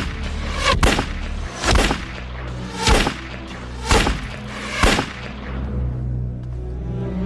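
Revolver fired six times at a steady pace, about a second between shots, each shot ringing out briefly, over background music.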